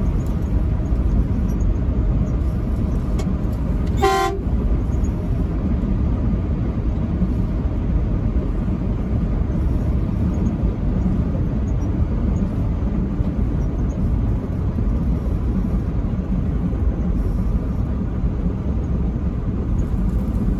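Truck driving at highway speed: a steady low road and engine rumble, with one short horn toot about four seconds in.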